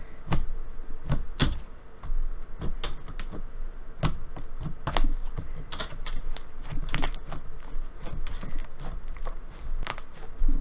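Slime being squished and stretched in the hands: irregular small sticky clicks and pops, several a second. The slime is a soft, slightly wet jelly-textured slime with clay in it.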